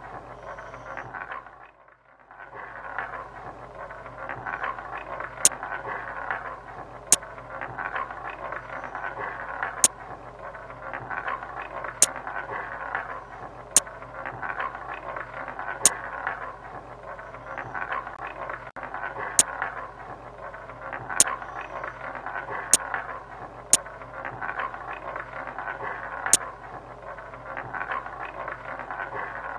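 About a dozen sharp single clicks, spaced irregularly a second or two apart, each one placing a $5 chip on a number in an online roulette game. They sit over a steady background hiss with a low hum.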